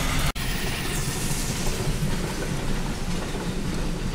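Steady rumble heard from inside a car, with the heritage train's carriages rolling along the rails close by. The sound drops out for an instant about a third of a second in.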